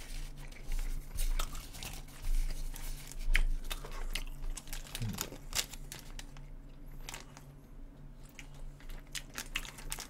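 McDonald's burger wrapper paper crinkling and rustling in the hands, in scattered short crackles, with chewing between them.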